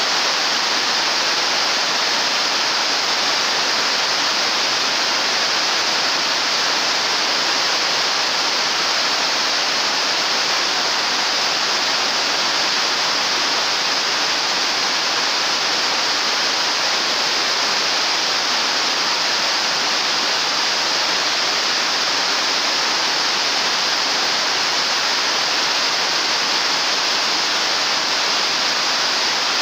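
Heavy rain falling on the roofs and splashing onto the flooded pavement: a loud, steady hiss that doesn't change.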